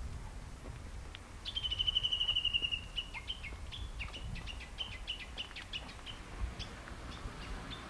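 A small songbird singing: a fast, slightly falling trill about a second and a half in, followed by a run of quick, short chirping notes. Under it is a low rumble of wind on the microphone.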